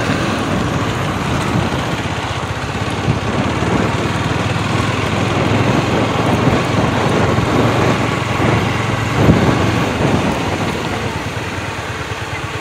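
Motorcycle riding over gravel and a dirt track: a small engine running steadily under wind and tyre noise.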